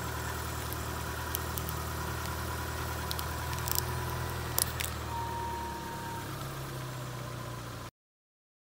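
Car engine idling while the tyre rolls onto a compact digital camera, with a series of sharp cracks and snaps as the camera is crushed, the loudest a little under four seconds in and again around four and a half seconds. The sound cuts off abruptly near the end.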